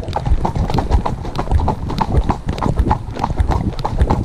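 Hooves of a ridden horse striking a dirt-and-gravel track, heard close from the saddle: a steady rhythm of several hoof strikes a second.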